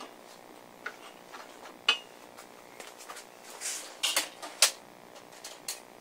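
Metal parts and tools being handled on a workbench: scattered sharp clicks and clinks, one about two seconds in with a short ring, a brief rustle, then a quick cluster of louder clacks a little past the middle.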